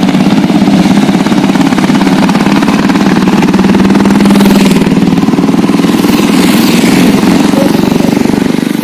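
Royal Enfield Classic 350 motorcycle's single-cylinder engine running loud and steady.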